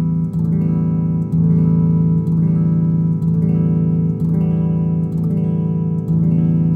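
Electric guitar strummed through an Ampeg V4 tube amp set for full bass: one chord struck about once a second and left to ring, with a dark, bass-heavy tone from the bass turned all the way up and the treble and 300 Hz mid-range turned all the way down.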